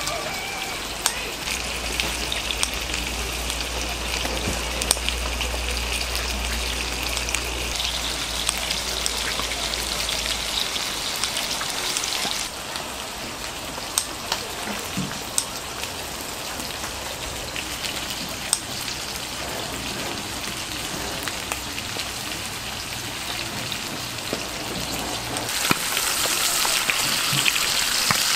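Pork offal sizzling on a hot grill, a steady hiss with frequent sharp pops and spatters, growing louder near the end.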